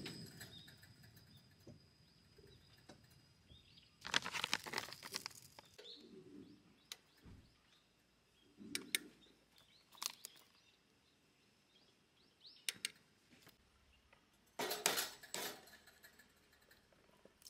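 Quiet, intermittent handling sounds as wooden fish-cake skewers are moved in an aluminium mess tin: a few sharp clicks and knocks, with two short rustling bursts, one about four seconds in and one near the end.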